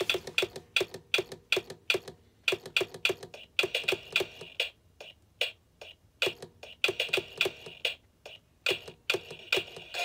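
Gemmy animated woodpecker singing birdhouse toy playing a woodpecker-pecking knock effect: sharp, short knocks, about three or four a second in uneven runs with a couple of brief pauses.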